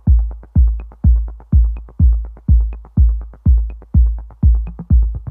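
Electronic outro music: a steady, heavy drum-machine kick about twice a second, with a light high tick about once a second.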